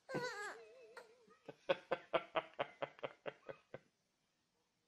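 A baby laughing: a high squeal that falls and wavers, then a run of about eleven quick, even laughs, about five a second, that stops about four seconds in.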